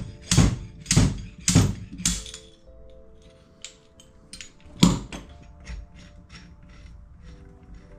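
Background music with held notes, over a series of sharp knocks and clicks: about five loud knocks in the first two seconds, lighter taps after, and one more loud knock about five seconds in.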